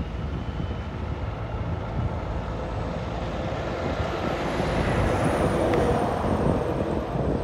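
Fire-department helicopter running close by on the ground before takeoff: rotor chop and turbine noise that swell a little midway, with a faint high whine sliding slowly down in pitch.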